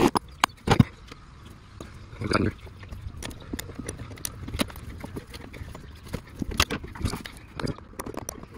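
Irregular clicks and knocks of a hand socket ratchet and metal tool on a car battery's terminal clamp as the clamp is loosened and lifted off the post. The loudest knocks come in the first second and near the end.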